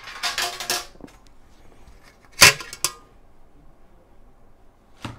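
Thin stainless-steel ash tray and stove parts being handled: a rattling clatter in the first second, then a sharp metal clank about two and a half seconds in, followed by a lighter click.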